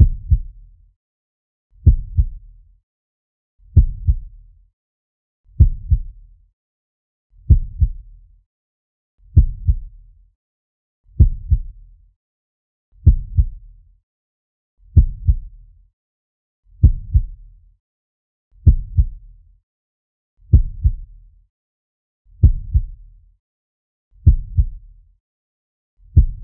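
Slow heartbeat sound effect: a low double thump (lub-dub) repeating steadily a little under two seconds apart, with silence between beats.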